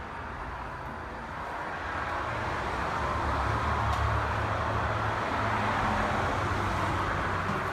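Steady vehicle-like rumble and road noise, with the low rumble growing louder about two seconds in and then holding.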